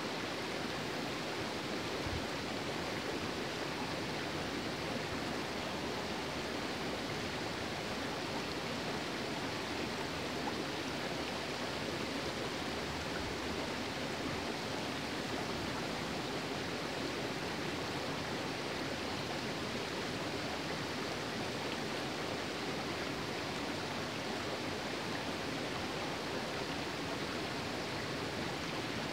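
Shallow, rocky stream running over stones: a steady rush of water.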